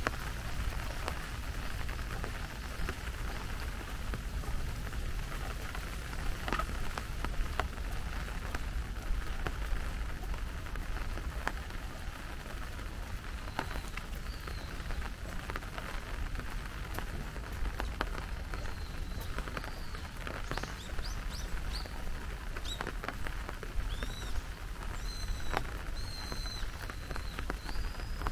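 Steady rain with the taps of scattered heavier drops. From about halfway through, a small bird gives short high chirps, coming in quick runs near the end.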